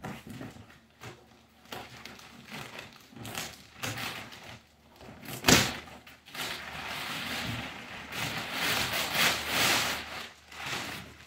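Cardboard shipping box being opened, its flaps knocking and scraping, with one sharp knock about halfway through. Then crumpled kraft packing paper crinkles and rustles loudly as it is pulled out of the box.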